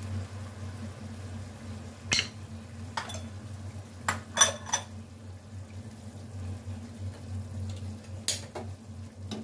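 Kitchen utensils and dishes knocking and clinking against a wok and plates, a handful of separate sharp knocks, some with a brief ring, over a steady low hum.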